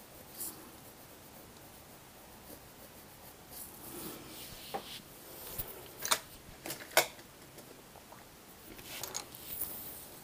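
Faint handling of art tools and paper on a desk: scratchy rubbing and rustling with a few sharp clicks, the loudest two about six and seven seconds in.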